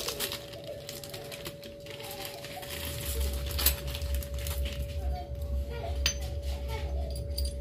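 Small metal motorcycle fork parts (bolts and spacers) clinking and clicking as they are handled, a few sharp clicks standing out. A steady faint hum runs underneath, and a low rumble comes in about three seconds in.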